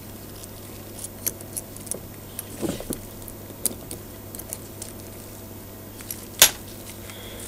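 Small metal parts of an Emotator 1200 antenna rotator clinking and tapping as they are handled with a screwdriver and pliers, with one sharper metal click about six and a half seconds in. A low steady hum runs underneath.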